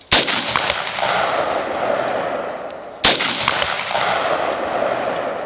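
Two rifle shots from a Bushmaster AR-15, about three seconds apart. Each sharp crack is followed by a long, slowly fading rush of noise.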